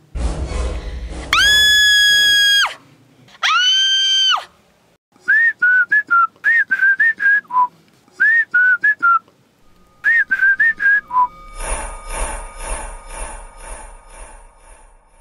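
Cartoon soundtrack whistles: two long whistle tones that swoop up, hold and drop, then quick runs of short chirping whistle notes. Near the end comes a rhythmic pulsing musical sound.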